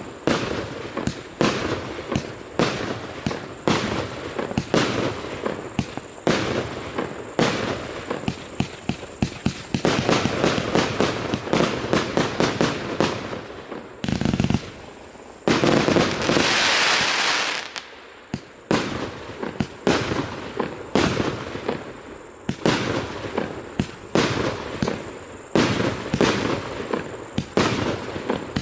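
A 288-shot, 1-inch consumer fireworks cake firing shot after shot, about two sharp launch bangs a second. Stretches of dense crackling come from crackling-star effects, loudest in a long crackling burst a little past halfway.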